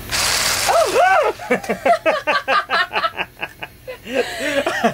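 A person laughing: a breathy burst, then about two seconds of quick rhythmic laughs, with a few spoken words near the end.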